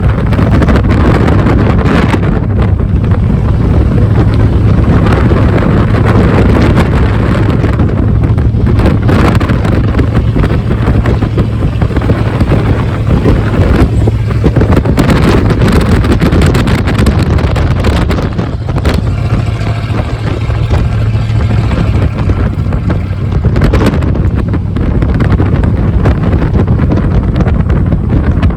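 1982 Ford F-150's 302 V8 running at low rpm through a 3-to-4-inch step exhaust while driving, a loud steady low drone, with wind buffeting the microphone.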